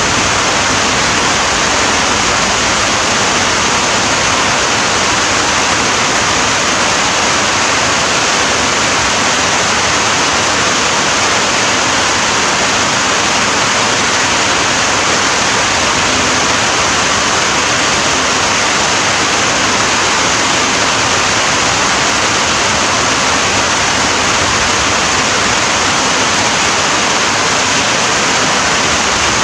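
Steady heavy rain: a loud, even hiss with no single drops standing out.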